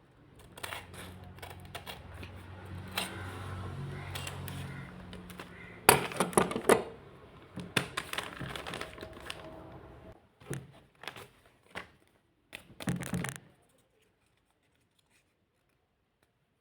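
Plastic blind-bag packaging crinkling and being torn open by hand, with loud sharp crackles about six seconds in and again near thirteen seconds.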